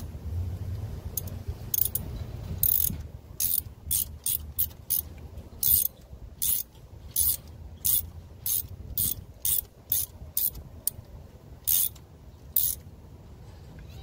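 Ratchet wrench clicking in short bursts, roughly two a second, as it turns a spark plug through its socket and extension. Each back-swing of the handle draws a quick run of pawl clicks.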